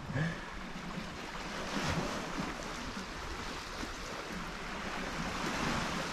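Sea waves washing onto the shore, a steady hiss that swells twice, about two seconds in and again near the end.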